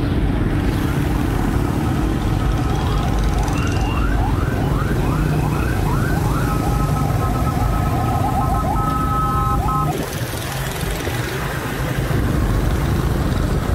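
Steady low rumble of a motorcycle riding through street traffic, with an electronic siren-like alarm sounding: a run of quick rising whoops, about two a second, then a held multi-tone blare that cuts off suddenly about ten seconds in.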